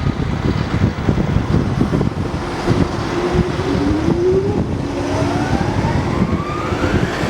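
Diesel engine of a Volvo EW160D wheeled excavator running, with a whine that climbs steadily in pitch through the second half.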